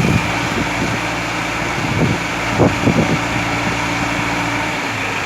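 Diesel engine of a hydra pick-and-carry crane running steadily, with a thin, steady high whine over it and a few short knocks.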